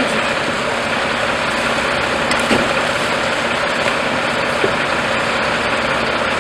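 Fire truck engine running steadily at a fire scene, a constant engine drone with a hiss over it.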